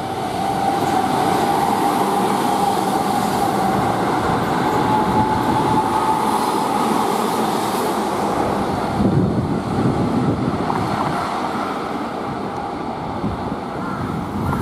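Keihan 8000 series electric train running past on its track: a steady rumble of wheels on rail with a high whine that rises slightly in pitch over the first half, rougher rumbling around two thirds through, easing somewhat as the train draws away.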